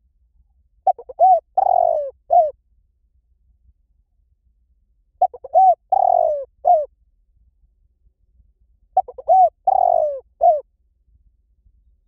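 Spotted dove cooing: three identical phrases about four seconds apart, each a couple of short coos, then a longer drawn-out coo and a short closing note.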